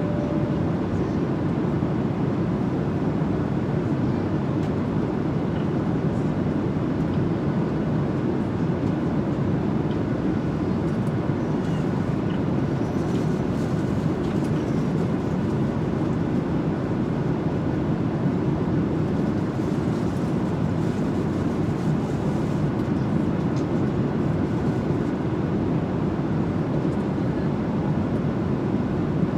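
Airliner cabin noise in flight: a steady low rumble of engines and rushing air that stays even throughout.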